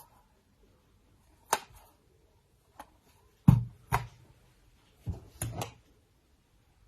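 Old mechanical alarm clocks being handled and set down on a hard surface: about seven separate knocks and clunks. The loudest is a dull thud about halfway through, with a quick pair of knocks there and a short cluster of them near the end.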